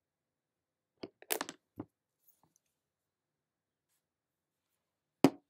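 Brief clicks and clatter of makeup items being handled and set down about a second in, then one sharp knock near the end, with silence between.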